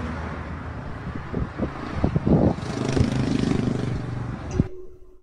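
Road traffic and engine noise heard from inside a vehicle in highway traffic, picked up by a phone, with a few knocks in the middle. The sound cuts off abruptly near the end.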